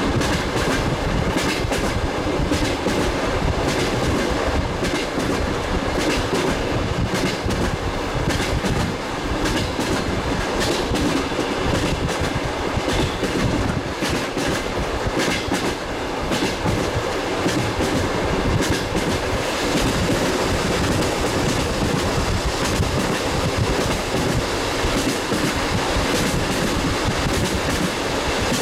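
Passenger coach wheels clattering over the rail joints at running speed, the familiar clickety-clack over a steady rumble of the running train. Heard through an open window, so the clatter is mixed with the rush of passing air.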